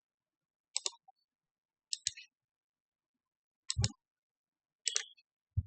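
Five short, sharp clicks spread across a few seconds, with dead silence between them.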